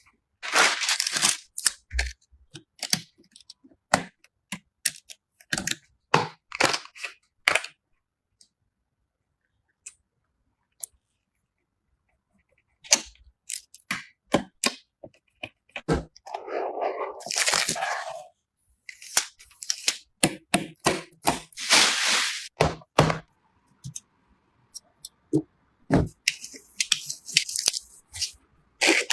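Sharp clicks, taps and snaps of computer parts being handled and fitted together while a PC is assembled, with a few longer scraping or rustling passages. There is a pause of near silence about a third of the way in.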